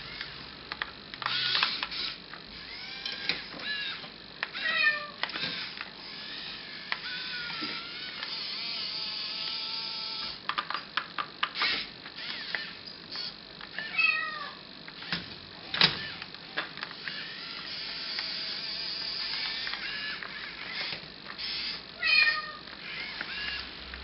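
Kitten meowing several times, short rising-and-falling calls. Between them come sharp clicks and knocks, with a steady electric whir from the radio-controlled excavator model working its grapple on the plastic logs.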